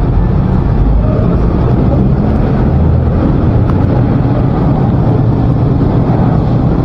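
Loud, steady low rumble with no distinct events.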